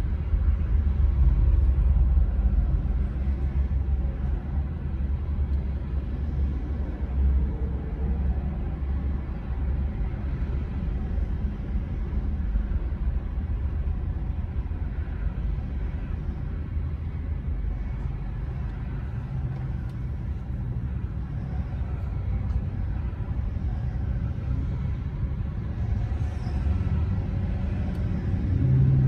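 Steady low rumble of car engine and road noise heard inside the cabin of a car moving slowly in stop-and-go freeway traffic.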